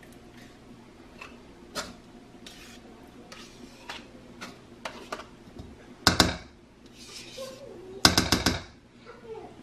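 Metal spoon scooping sour cream from a plastic tub with light clicks and scrapes, then knocking against a mixing bowl to shake the sour cream off: one loud knock about six seconds in and a quick run of about five taps near the end.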